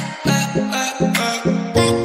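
Background music with a steady beat of pitched, sharply struck notes, growing fuller and lower near the end.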